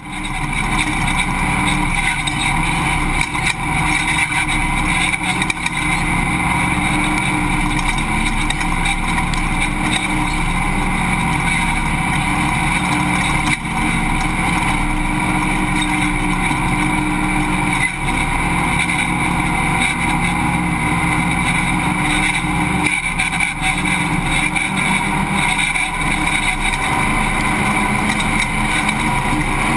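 Off-road race truck's engine running hard at fairly steady revs, heard loud and close from an onboard camera, with constant rumble and noise from the truck.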